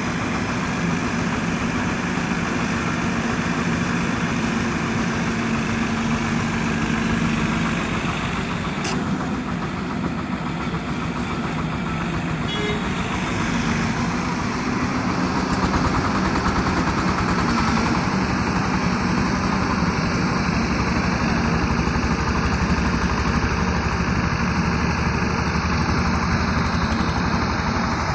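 Shantui SE90-9 excavator's diesel engine running steadily as the machine digs, a continuous drone that grows slightly louder in the second half. A brief click sounds about nine seconds in.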